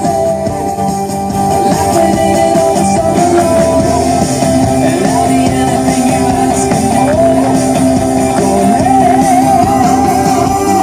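Rock music with singing and guitar played loud through a pair of KRK Rokit 5 studio monitors, the reference speakers in a comparison with a small Bluetooth speaker.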